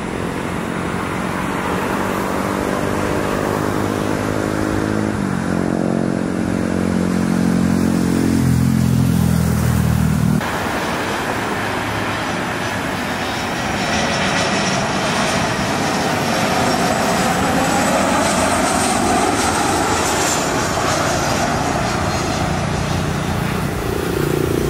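Jet airliner engines at high power on the runway, their whine falling in pitch. About ten seconds in the sound cuts abruptly to another jet airliner passing close overhead, its noise swelling with a slow sweeping whoosh that rises and falls.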